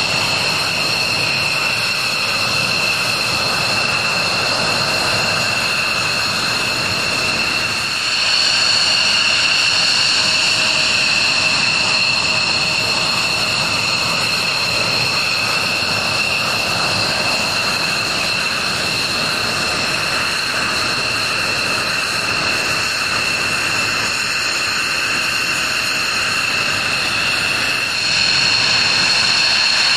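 F-16 fighter jets' Pratt & Whitney F100 turbofan engines running at low, steady power, a continuous high-pitched whine over a rushing noise. It gets louder in a step about a quarter of the way in and again near the end.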